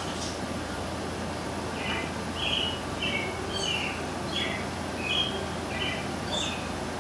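A bird chirping a quick run of about a dozen short, high notes, starting about two seconds in and stopping near the end, over a steady hiss.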